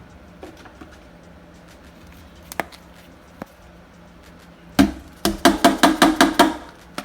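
A seasoning shaker being shaken over chicken: a few light clicks, then a sharp knock and a quick run of about eight rattling strokes, some five a second.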